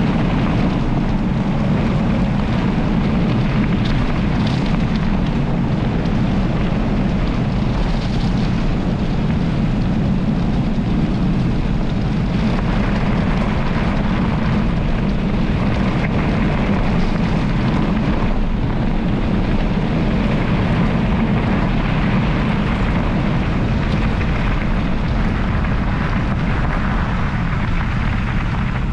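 Steady wind rumble buffeting the microphone of a camera riding on a mountain bike moving fast along a gravel forest road, with the tyres' rolling noise on the gravel underneath.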